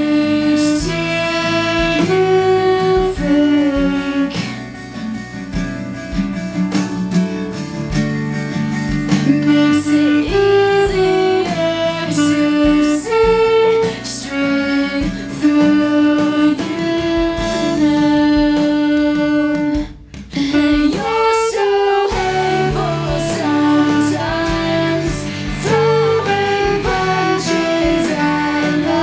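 Alto saxophone playing a melody of held and moving notes over a guitar-led rock backing track. The music briefly drops out about two-thirds of the way through, then resumes.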